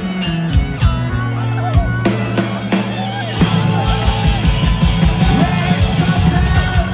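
Live rock band playing loudly through a concert PA: a steady drum beat and bass guitar notes, with guitar.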